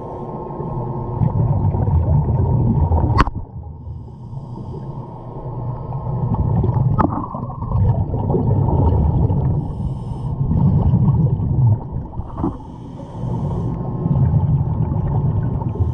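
Scuba diver's exhaled bubbles rumbling underwater in swells every few seconds, heard through a GoPro's waterproof housing, so muffled with the high end cut off. Three sharp clicks stand out, about three, seven and twelve seconds in.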